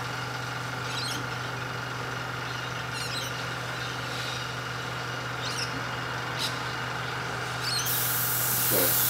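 Airbrush compressor running with a steady hum while the airbrush gives short puffs of spray hiss every second or two, then a longer continuous spray hiss from near the end. The pressure has just been turned back up after the spray began to sound bogged down.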